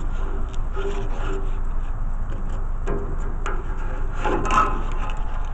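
Scraping and rubbing as a thin, bendy object is pushed through the plastic grille of an old central air-conditioner condenser to turn the fan blades. There are scattered scrapes and clicks over a steady low rumble, and the loudest rasp comes about four seconds in.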